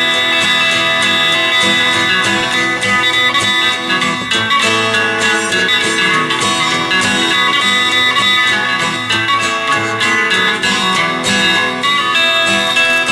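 Background music led by a guitar, with plucked and strummed notes.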